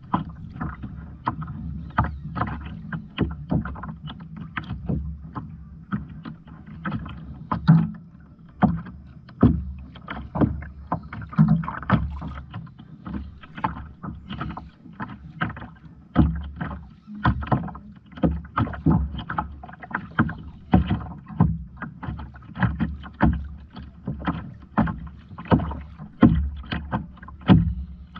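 Kayak on the sea: short sharp splashes or knocks a little more than once a second, over a steady low rumble of water against the hull.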